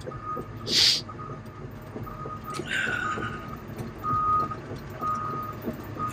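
Travel/backup alarm on a Caterpillar excavator beeping at a steady pitch about once a second, each beep roughly half a second long, over the low running of the machine as it tracks. A brief loud hiss sounds a little under a second in.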